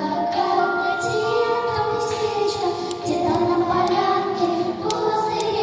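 A group of children singing a song together with musical accompaniment, holding long notes.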